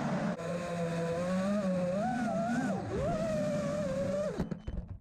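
Emax Buzz five-inch FPV quadcopter's brushless motors and propellers whining, the pitch rising and falling with throttle. The whine stutters and cuts out about four and a half seconds in as the quad sets down.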